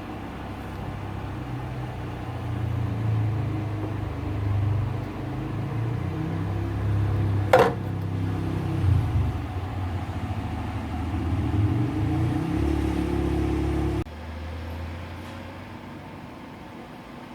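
Car air-conditioning flushing/service machine running with a fluctuating low hum while it flushes old refrigerant oil out of the system. There is a single sharp click about halfway through. Near the end the machine cuts off suddenly, leaving a quieter steady hum.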